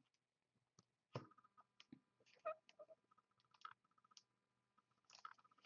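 Near silence with scattered faint clicks and taps, from trading cards and their holders being handled.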